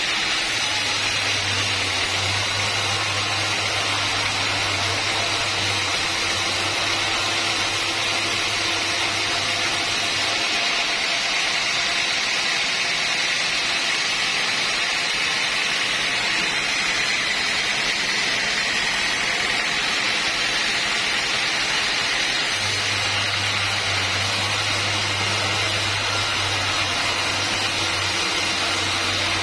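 Sawmill machinery running steadily, a loud even hiss with a low hum that drops out for a stretch in the middle and returns near the end.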